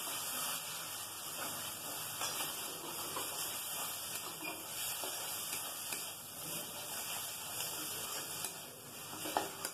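Spice paste with curd sizzling in oil in a kadai, a steady hiss. The oil has separated from the masala, the sign that it is cooked through.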